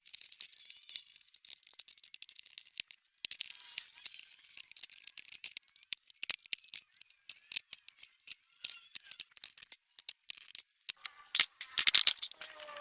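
Rapid, irregular clicking and rattling of small hard objects, growing louder and denser near the end.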